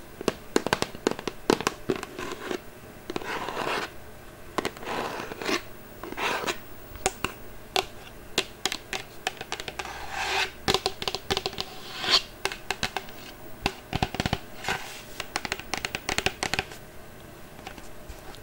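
Close-up ASMR scratching and scraping on an object, made with the hands, with many quick irregular clicks between short rasping strokes.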